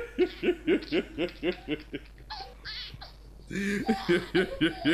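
A man laughing hard in rapid, rhythmic 'ha-ha-ha' pulses, about four to five a second. Around the middle the run breaks into squeaky, high-pitched gasps, then the rapid laughter picks up again.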